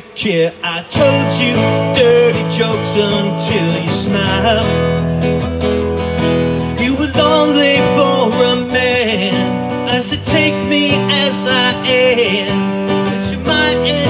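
Acoustic guitar music with a wavering melody line over sustained chords, an instrumental passage with no lyrics sung. It comes in fully about a second in after a brief dip.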